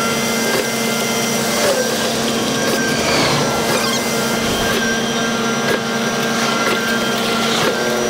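Concrete mixer truck discharging concrete down its chute, the engine and turning drum running steadily with a constant hum over a hiss.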